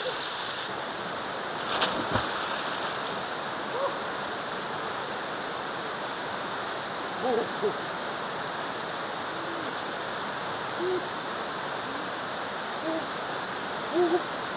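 Steady rush of a river and small waterfall, its hiss changing less than a second in. A brief knock or splash comes about two seconds in, and a few short pitched calls sound now and then over the water.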